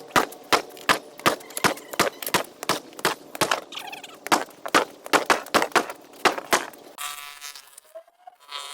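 Repeated heavy blows on concrete, about two to three a second at an uneven pace, as the old patio slab is broken up. About seven seconds in the blows stop and a steadier, noisier sound takes over.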